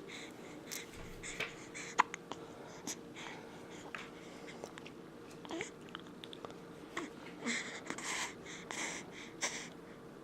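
Newborn baby hiccuping: short, sudden little hiccups about a second apart, the loudest about two seconds in. Near the end, a run of quick breathy snuffles.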